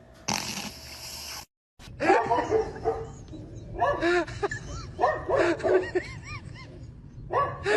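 A dog whining and yipping in quick groups of short calls that rise and fall in pitch. Before them, about a second of hiss-like noise ends abruptly.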